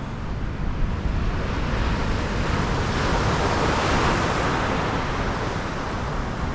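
Surf breaking on the shore: one wave's rush swells up about two seconds in, peaks, then washes back. Wind buffets the microphone throughout with a steady low rumble.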